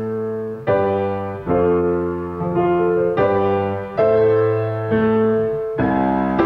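Piano playing a slow sequence of sustained chords, a new chord struck about every second and left to ring into the next.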